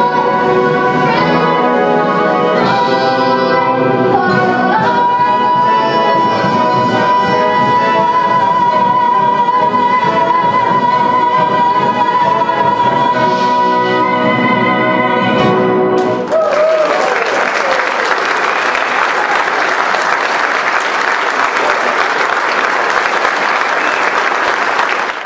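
An 11-year-old girl sings over a full brass band and builds to the song's final note, which she holds with vibrato for about eleven seconds. About sixteen seconds in, the band and voice cut off together on the final chord, and the audience breaks straight into loud applause.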